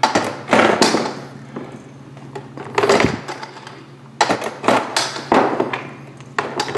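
Hard plastic toy pieces knocking and clattering in separate bursts: one in the first second, one near three seconds, and a longer run of clicks between about four and six seconds.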